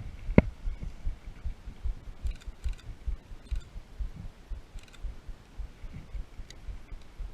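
Footsteps of someone walking through the forest: low thuds several times a second, with a sharp click about half a second in and a few faint crackles.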